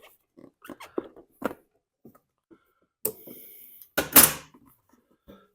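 Small engine parts being handled and fitted by hand: light clicks and knocks, a short hiss about three seconds in, and a louder clatter about four seconds in.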